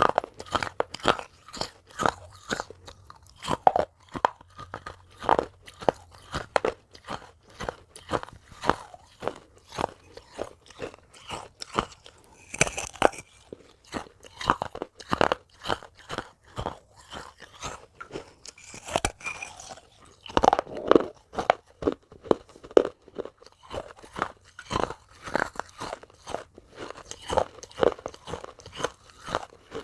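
Biting and chewing pieces of clay pot: a steady run of sharp, brittle crunches, several a second, with a few harder bites along the way.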